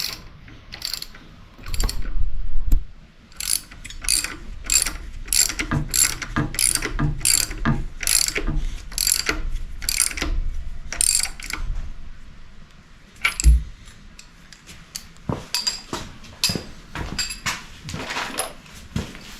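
Hand ratchet wrench clicking through repeated strokes, about two clicks a second, with a brief pause and a single low thump partway through before the ratcheting resumes.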